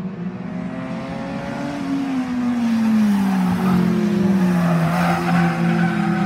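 Stock car engines running, one growing louder about two and a half seconds in as its pitch slides down.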